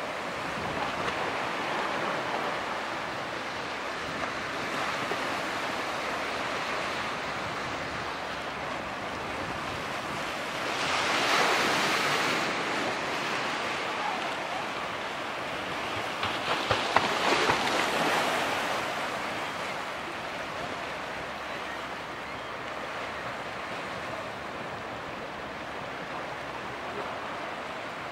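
Wake from a passing lake freighter washing and splashing against a concrete canal pier wall, a steady wash of water with two louder surges of splashing, one near the middle and one a few seconds later. Wind buffets the microphone.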